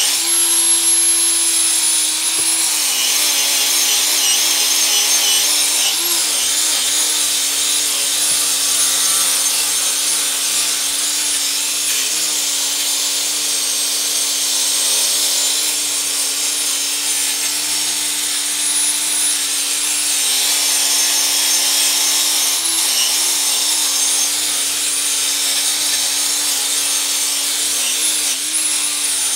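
Small electric angle grinder running with an abrasive disc against a stainless motorcycle muffler, grinding smooth the solder used to patch holes in it. Its steady whine dips in pitch briefly a few times as the disc bears on the metal.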